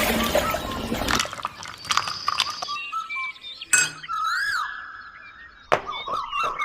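Small hard pieces clinking and scraping against each other in several separate stretches, with sharp clicks between them.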